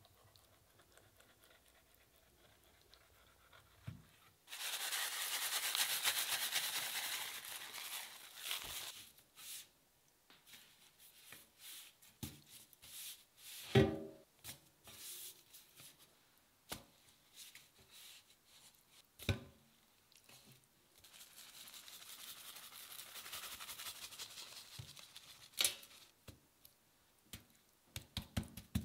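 Coarse salt poured into a stainless-steel tray in a steady hiss, twice for several seconds each, to dry-cure salmon. Between the pours come a few knocks and thuds as the salmon is laid in the tray, the loudest about halfway through.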